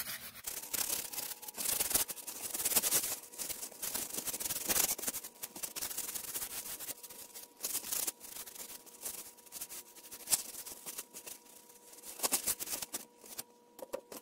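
Paper towel wiping the metal frame of a 3D-printer resin vat, cleaning it with isopropyl alcohol: an irregular scratchy rubbing that comes and goes in strokes.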